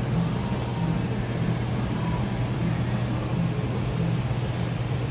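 A steady low mechanical hum with a faint regular pulsing in its upper tone, like a running engine or motor.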